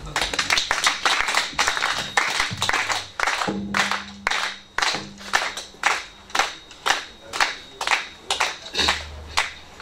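Audience clapping: a dense burst of applause that settles into steady rhythmic hand-clapping, about two claps a second.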